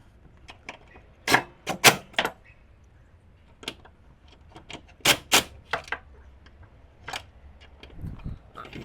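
Scattered sharp metallic clinks and taps, hand tools and suspension parts being handled, coming in small clusters about a second and about five seconds in, with single clinks between.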